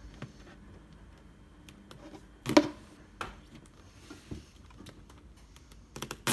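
Hands handling a hollow plastic toy carry case: scattered small clicks and taps, with one louder knock about two and a half seconds in and a few more clicks near the end.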